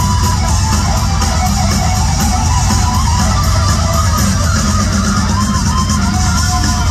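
Live instrumental progressive metal band: an electric guitar playing a melodic line with bends over bass guitar and a drum kit with steady cymbal strikes.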